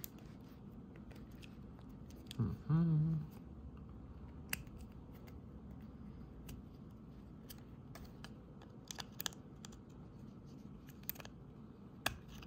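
Light plastic clicks and snaps of a Honda key fob's plastic case being pressed and worked in the fingers as its two halves are pushed together without snapping shut. A brief low hum from a person about two and a half seconds in is the loudest sound.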